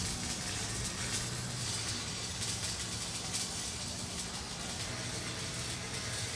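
Stick welding on steel square tubing: a steady crackling hiss from the arc of a Lincoln 225 welder, with a low hum underneath.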